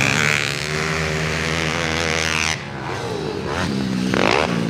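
Pit bike engines racing, their pitch rising and falling as the riders work the throttle, with a sharp rev-up near the end.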